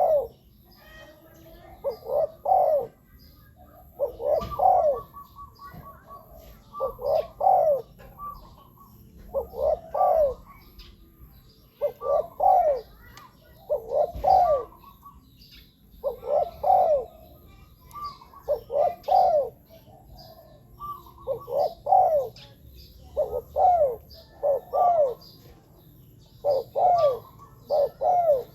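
Spotted dove cooing its song: a short phrase of several low coos, repeated about every two seconds.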